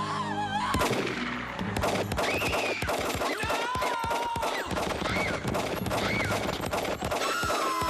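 Rapid automatic gunfire from a submachine gun: long runs of shots in quick succession.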